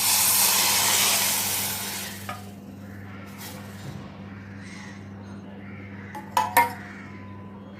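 Hot herbal drink boiling hard in a pan, a loud hiss for about two seconds that cuts off suddenly; then faint kitchen noise and two quick metal clinks of pots or utensils near the end.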